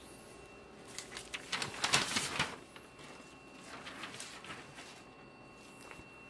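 A large sheet of copier paper rustling and crackling as it is handled, loudest about two seconds in, with a softer rustle a couple of seconds later. A faint steady high tone runs underneath.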